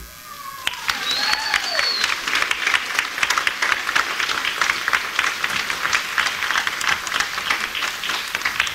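Audience applauding, with one high whistle rising and falling about a second in.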